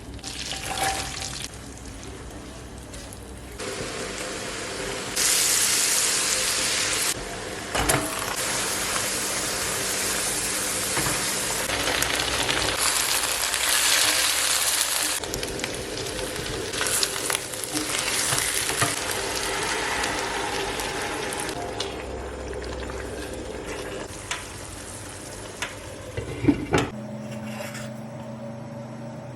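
Food frying and sizzling in a pan while it is stirred. The sizzle jumps up and down in level several times, and a few sharp knocks come near the end.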